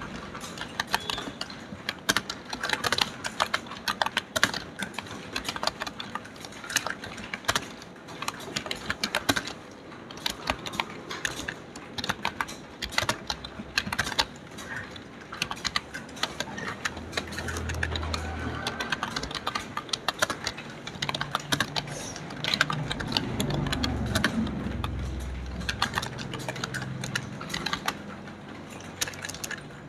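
Fast, continuous typing on a computer keyboard, a dense patter of irregular keystroke clicks. A low rumble comes and goes under it around the middle and again in the second half.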